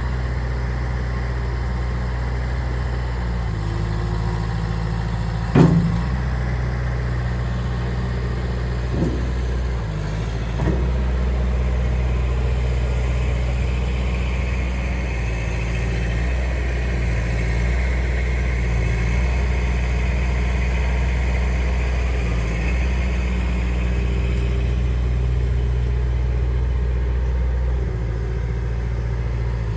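Skid steer loader's engine running steadily, its note shifting up and down several times. There are a few sharp knocks, the loudest about five and a half seconds in.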